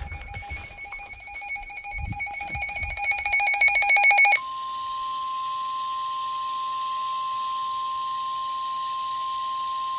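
A weather radio receiver's alert alarm beeping in rapid pulses, getting louder, then cutting off about four seconds in. A single steady high tone follows, the NOAA Weather Radio 1050 Hz warning alarm tone that signals a warning message is about to be read.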